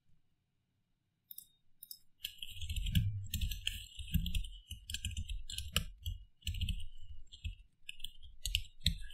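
Computer keyboard typing: a fast, uneven run of key clicks that starts with a few taps about a second in and turns continuous from about two seconds in.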